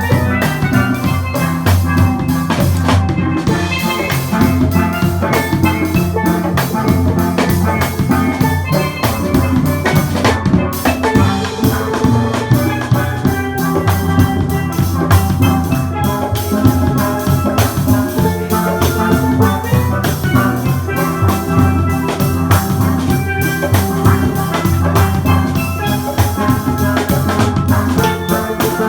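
Music with drums and a steady beat under a bright pitched melody, starting abruptly.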